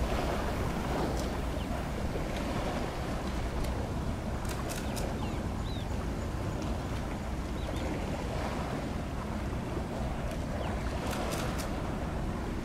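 Steady low rumble with wind on the microphone, outdoors by the water, with a few faint short high chirps and ticks.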